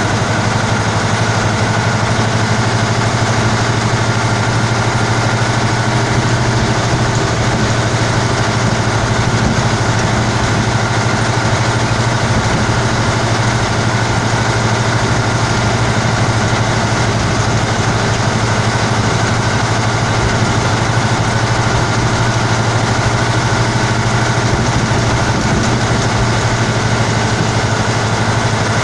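Praga V3S truck's air-cooled six-cylinder Tatra diesel running steadily under way, heard from inside the cab, with a strong steady low hum.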